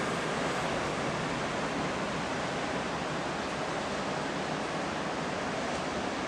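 Steady rushing of distant ocean surf, an even wash with no distinct breaking waves.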